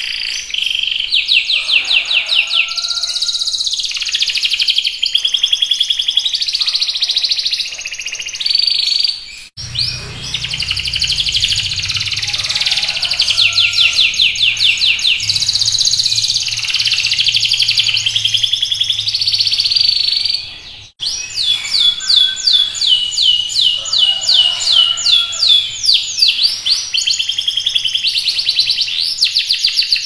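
Canary singing continuously in full song: long, rapid trills and rolls of high notes. The song breaks off abruptly twice, about ten and twenty-one seconds in.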